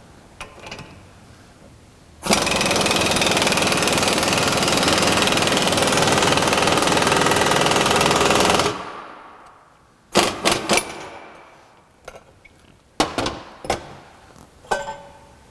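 Air impact wrench hammering for about six seconds as it drives the ball joint press screw, pressing a new lower ball joint into a Honda Element steering knuckle, then winding down. After that come a few sharp metal clanks as the press is taken off the seated joint.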